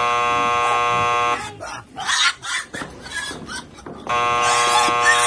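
A loud, steady buzzing tone, sounding twice for about a second and a half each time, about three seconds apart, with shorter scratchy or squealing noises between.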